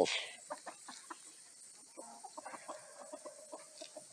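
Chickens clucking softly, with a low, drawn-out hen call held from about halfway through; quiet, with scattered faint pecking clicks.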